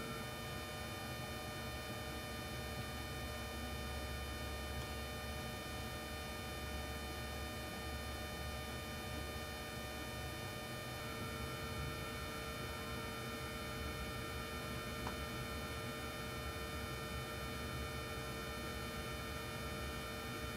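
Steady electrical hum and hiss from a binaural microphone rig, with no music leaking from headphones playing at 25% volume. A low rumble eases about halfway through.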